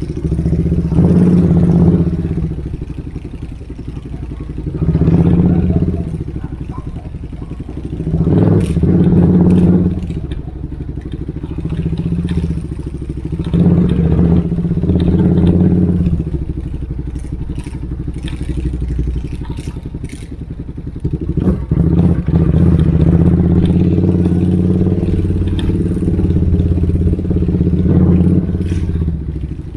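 Motorcycle engine running loud, its sound swelling and easing off again and again as the throttle is opened and closed, with a longer stretch of high engine sound in the last third.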